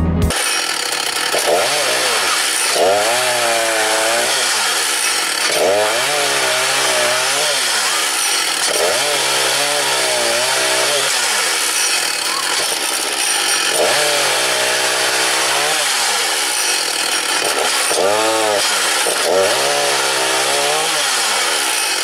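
Petrol chainsaw held in a log-cutting stand, cross-cutting logs one after another. The engine pitch rises and falls about six times, once every three to four seconds, over a constant rasp.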